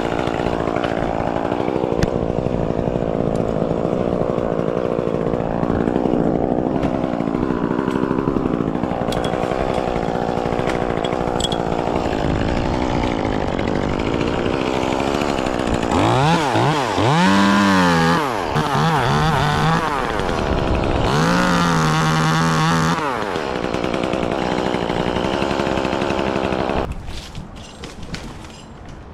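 Chainsaw cutting pine limbs, running steadily at first, then revving up and down several times in the middle before it dies away near the end.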